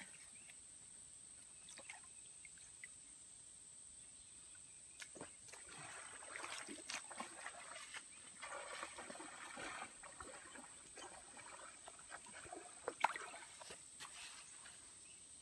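Faint outdoor ambience with a steady high insect drone. Rustling and scraping come in about five seconds in and last for several seconds, and a single sharp click is heard near the end.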